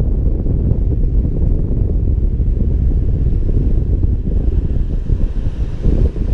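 Wind buffeting the microphone: a loud, rough low rumble that gusts unevenly throughout.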